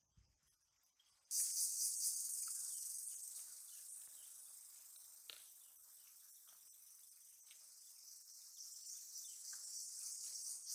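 Outdoor insect chorus, a steady high-pitched buzzing like crickets, starting suddenly about a second in, with a few faint ticks as fingers pick apart pieces of fried fish.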